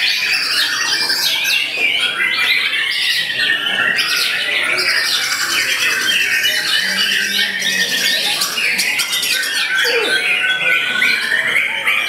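White-rumped shama (murai batu) singing loudly without a break, a fast run of varied whistles, trills and chattering phrases, with other caged songbirds singing around it.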